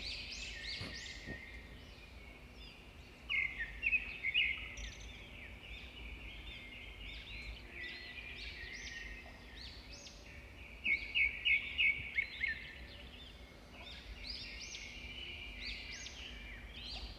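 Small birds chirping, many short quick notes overlapping, with louder runs of rapid repeated chirps about three seconds in and again around eleven seconds.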